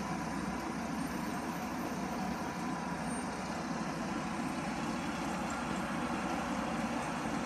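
Steady city road traffic heard from above: a continuous mix of car and minibus engines on a busy road and intersection.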